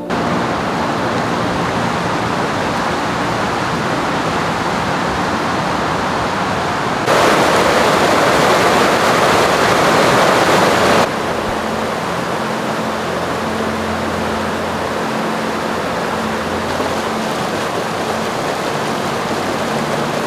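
Fast mountain creek rushing over rocks in white-water rapids, a steady noise of running water that grows louder for about four seconds in the middle.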